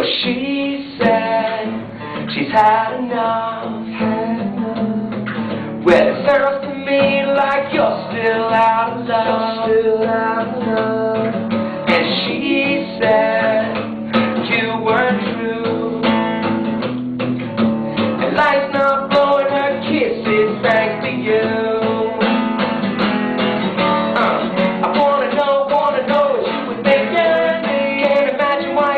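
Acoustic guitar strummed in a steady rhythm while a man sings over it, unamplified.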